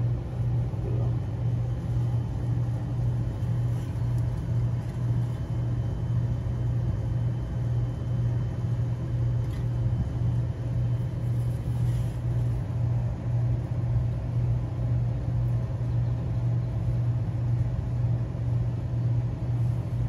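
Steady, even low drone of running machinery, unchanging throughout, with a faint higher steady tone over it.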